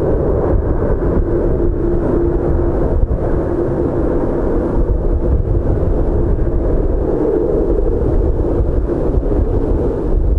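Twin-engine widebody airliner's turbofan engines at takeoff thrust, heard from behind as the jet accelerates down the runway: a loud, steady rumbling noise.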